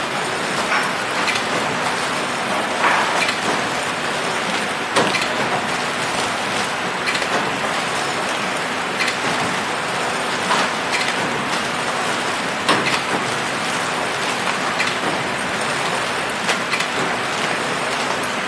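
Horizontal flow-pack wrapping machine running steadily: a continuous mechanical whir and hiss with irregular sharp clicks and knocks from its moving parts as trays of buns pass through.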